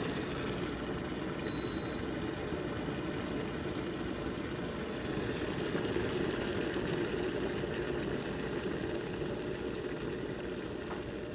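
Cuisinart stainless steel cordless electric kettle heating water, a steady rushing noise as the water nears the boil.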